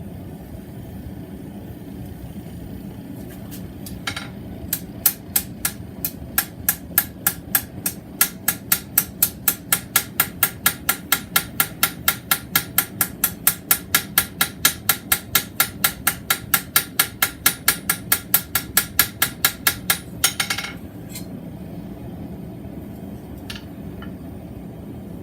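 Hand hammer striking a 3/8-inch square mild steel bar on an anvil: one blow, then a long, even run of ringing blows at about three a second, which stops about three-quarters of the way through.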